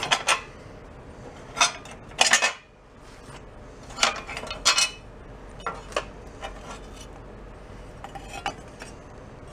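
Sharp metal clinks and clatter of head bolts and washers being picked out and set down as the cylinder head comes off an antique Briggs & Stratton engine. There are several separate clinks, the loudest about two seconds in and again around four to five seconds.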